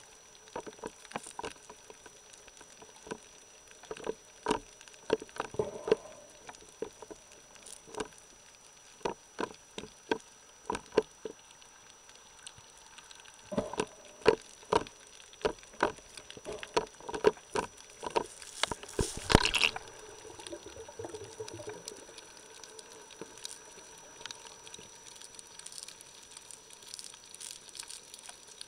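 Underwater sound picked up by a waterproof camera during a snorkel dive: irregular sharp clicks and knocks, a faint steady high tone, and a short rush of noise about two-thirds of the way through.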